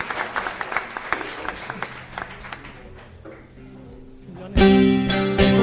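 Hand clapping that tapers off, then after a short lull a Turkish folk band starts up loudly about four and a half seconds in, led by plucked bağlama (saz) strings with sharp beats.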